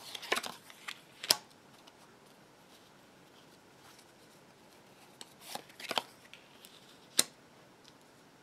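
Tarot cards being drawn from the deck and laid down on a wooden table: two short bursts of papery sliding and card clicks, one right away and one about six seconds in, each with a sharp snap, then a single sharp tap about seven seconds in.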